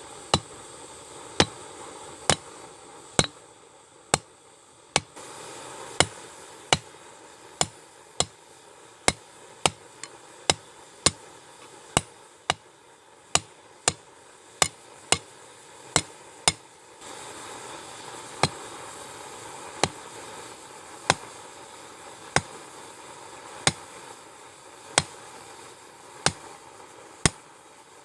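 Hand hammer striking hot mild steel on an anvil while forging a punch: sharp ringing blows about one a second, spacing out a little after the middle.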